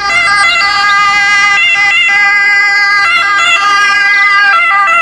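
Loud electronic ambulance siren: a steady, many-toned siren sound with small pitch shifts in places.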